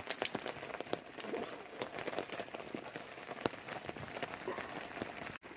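Rain falling, with many separate drops ticking sharply close by at uneven intervals.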